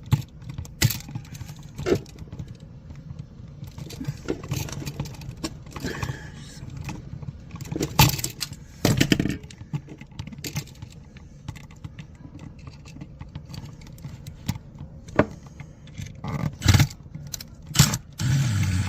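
Irregular metallic clinks, knocks and scrapes of hand tools and parts being handled, over a steady low hum.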